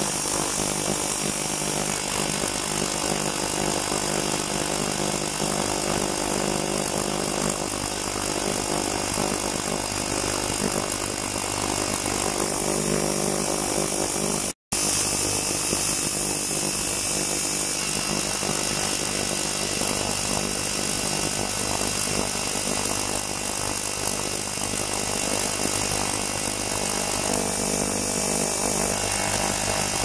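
Ultrasonic cleaning tank running: a steady, loud buzzing hiss from the transducers and the cavitating water, with several steady tones held throughout. It cuts out for a split second about halfway through.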